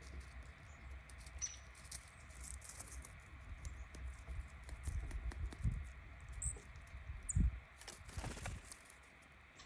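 Female red-bellied woodpecker pecking at a suet cake: a run of quick light taps and scratches, with a couple of dull thumps in the second half.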